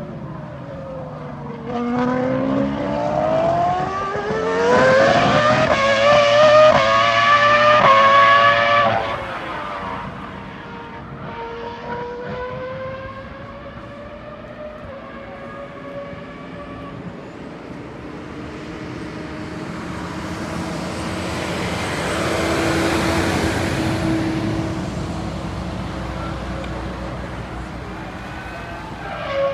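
Ferrari three-seater Formula 1 car's V10 engine accelerating hard, its pitch climbing steeply and at its loudest until it cuts off suddenly about nine seconds in. It then runs at lower, varying revs and swells again past twenty seconds.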